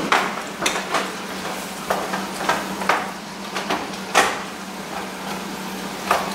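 Wooden spatula stirring chopped tomato and vegetables frying in a skillet: a run of irregular scrapes and knocks against the pan over a steady sizzle, with a steady low hum underneath.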